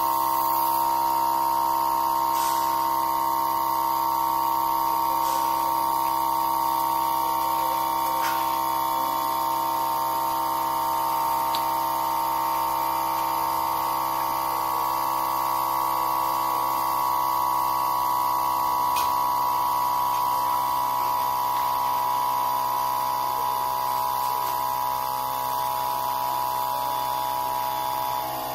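Electric lacquer sprayer running, giving a steady, unbroken electric hum with several held tones.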